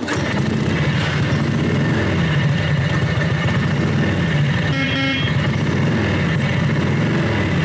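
1950 Harley-Davidson 45's flathead V-twin engine running steadily, with a brief higher tone about five seconds in.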